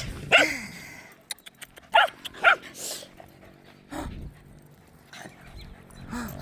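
Dog barking in short barks, about four: one just after the start, two close together about two seconds in, and one near the end.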